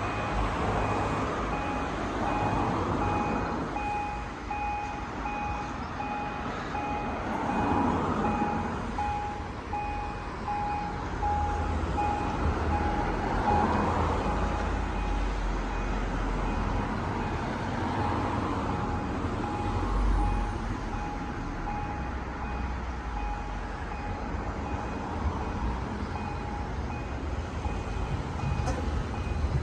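Pedestrian level crossing warning signal beeping in a steady on-off rhythm, sounding as a train approaches. Road traffic swells and fades underneath.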